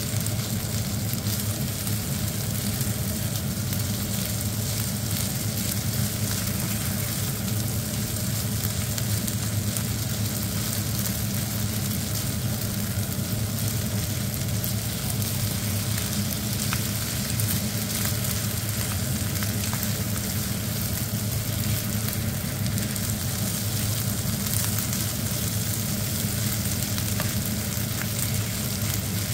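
Fried rice sizzling steadily in a coated frying pan while a slotted nylon turner stirs and scrapes it, with scattered small ticks of the turner against the pan over a steady low hum.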